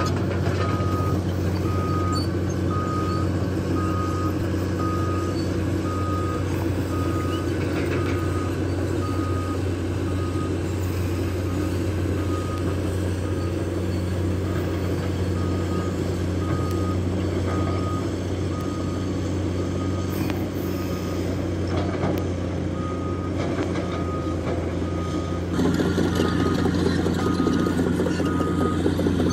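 Caterpillar 336 hydraulic excavator's diesel engine running steadily while its travel alarm beeps about one and a half times a second, the warning that the machine is tracking. The beeping pauses twice, and the engine grows louder near the end.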